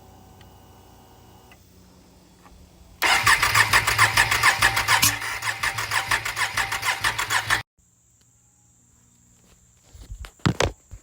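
Can-Am Outlander 570's V-twin engine being cranked over by its starter: a rapid, even chugging for about four and a half seconds that stops abruptly without the engine catching, the ATV's crank-no-start fault. A few sharp knocks follow near the end.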